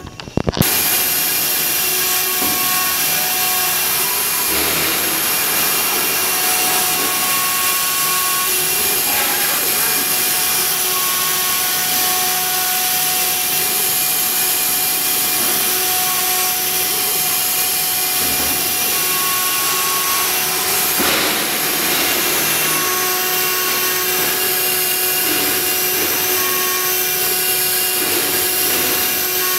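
CNC router running a job: a steady spindle whine with cutting noise, and motor tones that come and go every few seconds. The sound drops out briefly right at the start.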